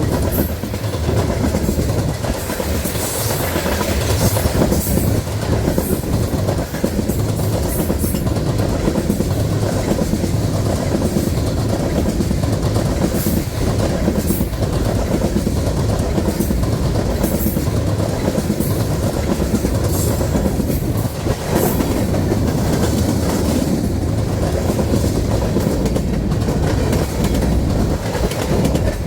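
Freight train of empty grain hopper cars rolling past at speed, its wheels making a steady clickety-clack over the rail joints.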